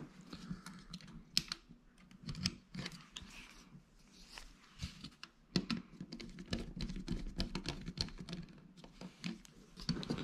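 Irregular light clicks and small scrapes as a screwdriver turns terminal screws and fingers work thermostat wires into the terminals of a plastic thermostat wall plate, busier in the second half.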